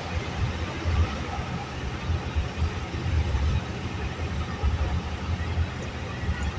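Engine and road noise of a vehicle driving along a highway, heard from inside the cab: a steady low rumble with tyre and wind hiss.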